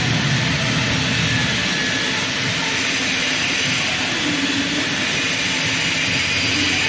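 Electric arc welding the circumferential seam of a pipe turning on a welding positioner, with sparks flying: a steady, even hiss at constant loudness.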